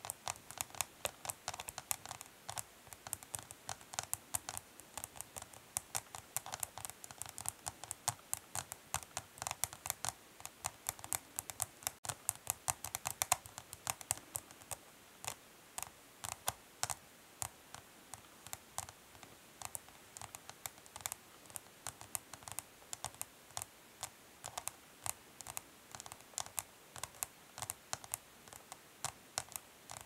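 Long natural fingernails tapping quickly and lightly on a hard plastic makeup palette, a fast, uneven patter of clicks at several taps a second. The tapping is densest around the middle and thins out toward the end.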